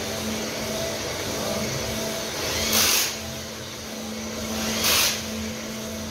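Cylinder honing machine running in an engine workshop, a steady motor hum with a constant low tone. Two short, loud bursts of hiss cut in, nearly three seconds in and again about five seconds in.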